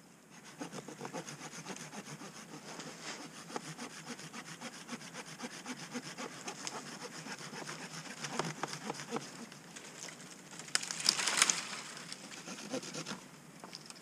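Hand saw cutting through a thin standing tree trunk, with rapid back-and-forth strokes through the wood. The sawing gets louder near the end as the trunk gives way and comes down.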